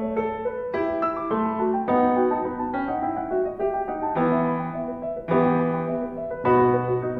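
Background piano music, with notes and chords struck one after another and left to ring.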